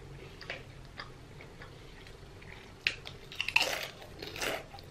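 Close-up chewing with faint mouth clicks, then loud crunching from about three seconds in: a mouthful of potato chips being bitten and chewed.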